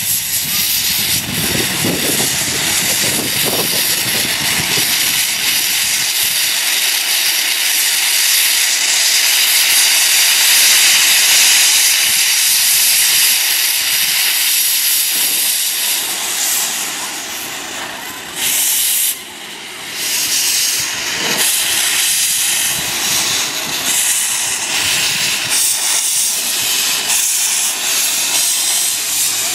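Narrow-gauge steam locomotive hissing loudly and steadily as steam vents from its open cylinder drain cocks, with a brief dip in loudness about two-thirds of the way through.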